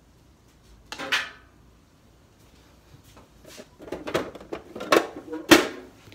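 A metal utensil scraping across a steel griddle top and clanking against a stainless steel bowl as ground beef and corn are scooped into it. One scrape comes about a second in, then a run of scrapes and clanks starts near the middle, the loudest close to the end.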